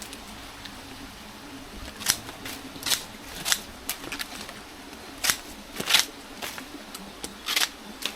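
A pair of scissors snipping through banana leaves: about eight sharp, short cuts at uneven intervals, starting about two seconds in.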